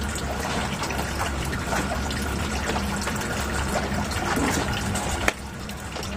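Water running and splashing steadily over the low hum of an electric pond pump, with small plastic clicks as pump parts are handled and one sharp click about five seconds in.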